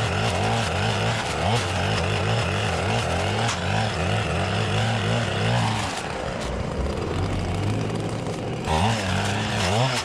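Stihl FS-561C clearing saw's two-stroke engine running hard as its mulching blade cuts blackberry bramble, its pitch wavering up and down with the load. A little past halfway it drops back for about three seconds, then revs up again near the end.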